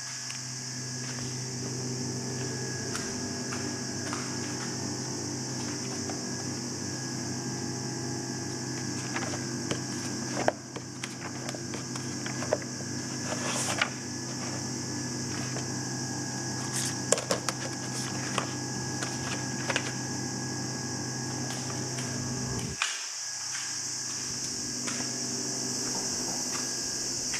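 Steady low machine hum over a constant high hiss, broken by scattered clicks and knocks. The hum cuts out for a moment near the end.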